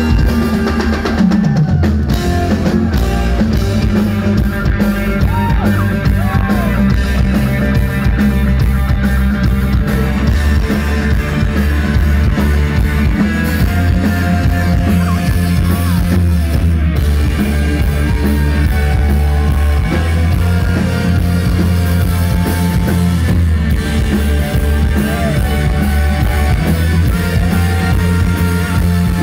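Live yacht rock band playing loudly on stage: drum kit keeping a steady beat under electric guitar and bass guitar.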